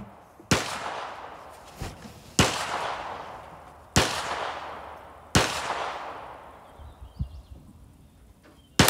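Rifle shots on a shooting range: four sharp reports about a second and a half apart, each with a long echoing tail, two fainter shots, and another loud shot right at the end.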